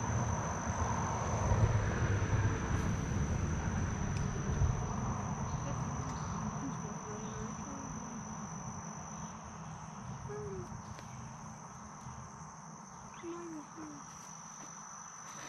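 Insects droning outdoors: one steady high-pitched tone that holds without a break. Under it, a low rumbling noise is loudest over the first few seconds and then fades, and a few short, faint chirps come in the second half.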